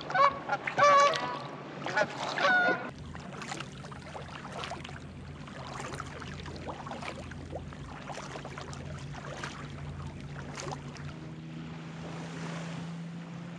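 A flock of geese honking in a loud run of calls for the first three seconds or so, then the splashes and drips of kayak paddle strokes on the water.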